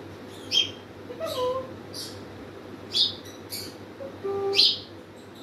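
Congo African grey parrot calling with short whistles and sharp, squeaky high chirps: a short whistle about a second in, a steady two-tone whistle about four seconds in, and chirps at about half a second, three seconds and, loudest, near the end.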